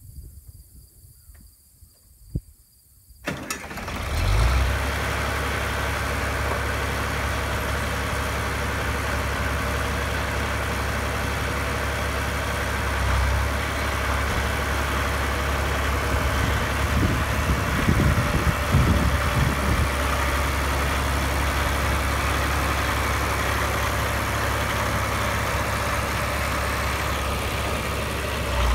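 John Deere 4020 diesel tractor's six-cylinder engine starting about three seconds in, then running steadily at idle.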